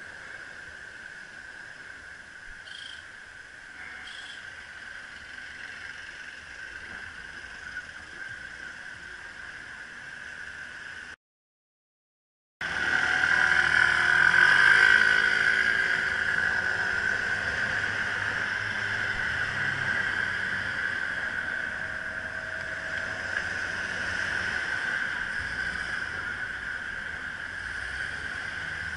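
Electric bicycle's motor whining steadily as it climbs, with road traffic around it. The sound drops out for about a second and a half partway through, then comes back louder with vehicle engines close by.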